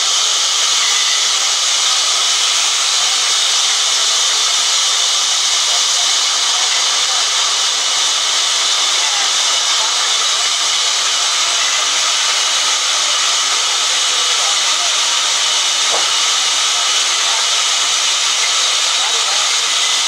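Large sawmill band saw running and ripping through a heavy timber balk: a loud, steady, high-pitched hiss that holds without a break. A single short click sounds late on.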